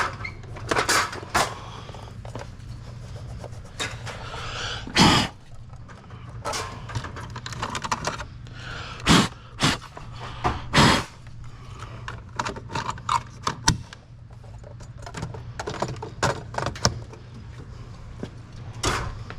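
Clattering, clicks and knocks of products and machine parts being handled while a vending machine is restocked, with a few louder bangs, over a steady low hum.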